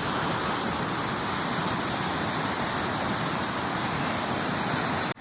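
Floodwater rushing fast through a flooded wash, a steady roar of moving water.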